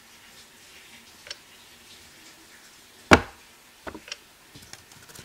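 A few sharp taps and clicks on an iPad's glass screen: a faint one about a second in, one loud knock about three seconds in, then a few lighter clicks.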